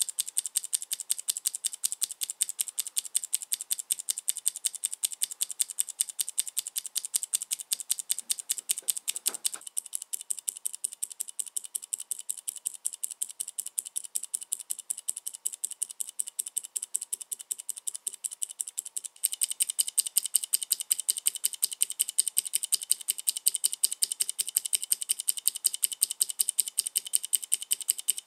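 Mechanical keyboard keys with Cherry MX switches pressed over and over in a fast, even stream of sharp clacks. The clacks get louder about two-thirds of the way through.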